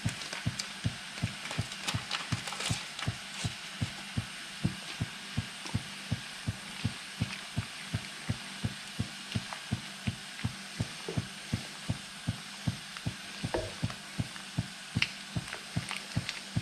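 Pot of sour cherries and sugar cooking on the stove while gelatin is stirred in. There is a steady low thudding about two to three times a second, with light sizzling and scraping clicks.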